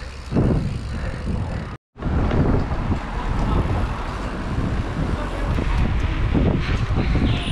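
Mountain bike being ridden: wind rumbling over the action-camera microphone, with tyre and trail noise underneath. The sound cuts out completely for a moment about two seconds in, then carries on steadily.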